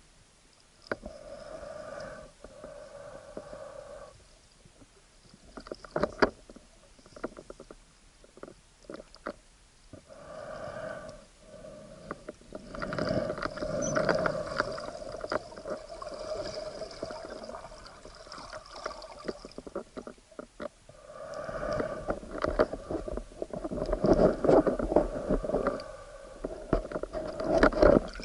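Underwater sound picked up through an action camera's waterproof housing: a pitched drone that comes and goes in stretches of a few seconds, with gurgling, scattered knocks on the housing and low rumbling.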